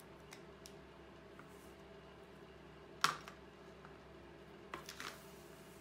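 A sharp click about three seconds in, then a few lighter knocks near the end as the taped-down drawing board is shifted on the tabletop, over a faint steady hum.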